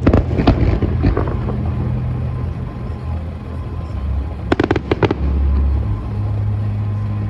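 Aerial fireworks: a shell bursts with a sharp bang and crackles for a second or so. About four and a half seconds in, a rapid volley of several sharp cracks follows.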